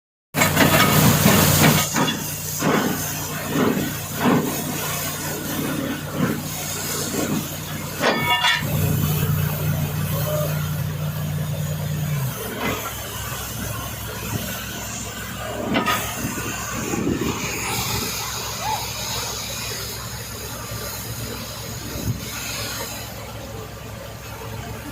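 Steady rushing hiss of flowing water, with a low engine-like hum that stops about twelve seconds in and scattered knocks.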